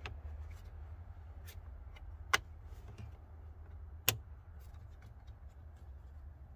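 Sharp plastic clicks of wiring-harness connectors being handled and pushed together: two loud clicks about two seconds apart, with lighter ticks between them, over a low steady hum.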